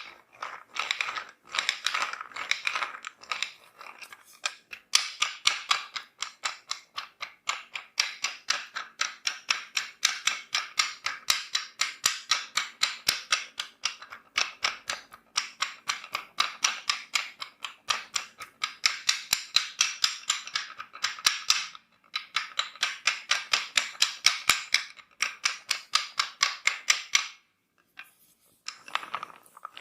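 Fast rhythmic slapping of hands on skin, about five strikes a second, in runs with short breaks: massage tapping.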